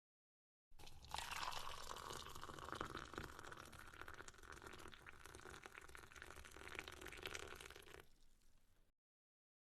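Faint liquid sound with many tiny pops and crackles, starting about a second in and fading out near the end.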